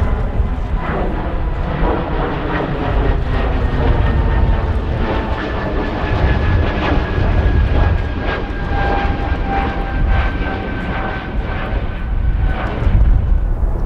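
Jet airliner's engines passing, with a turbine whine that slowly falls in pitch and fades near the end. Heavy wind rumble on the microphone underneath.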